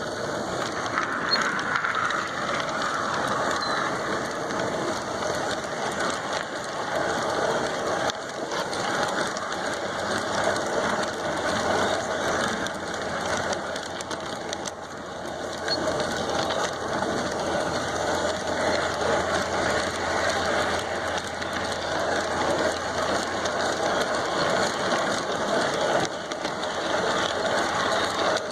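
G-scale model train running along its track, its electric motor and gearing giving a steady mechanical whir with wheel noise from the rails.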